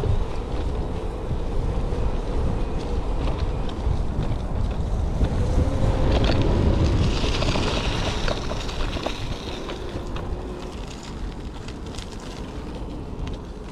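Wind buffeting the microphone and tyres rumbling over rough offroad ground as an electric bike is ridden, with frequent small clicks and knocks of the bike rattling. It grows quieter through the second half.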